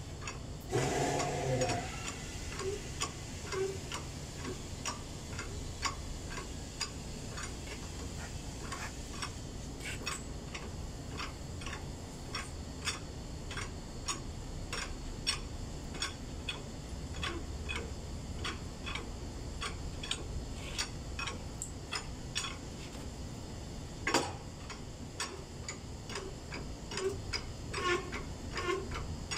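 Steady mechanical ticking, about two to three sharp clicks a second, with a ringing metallic clank about a second in and one sharp knock near the end.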